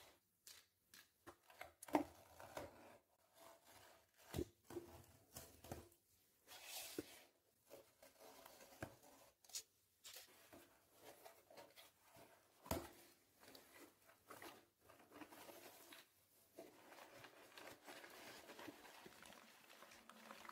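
A cardboard box being opened by hand: packing tape tearing and cardboard flaps scraping, with several sharp knocks of the box along the way. From about three quarters of the way through, crumpled kraft packing paper crinkles steadily as it is handled.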